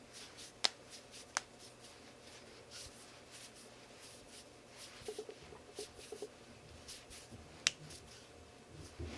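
Knuckles cracking: three sharp pops, two in the first second and a half and one near the end, with fainter clicks and handling noise between.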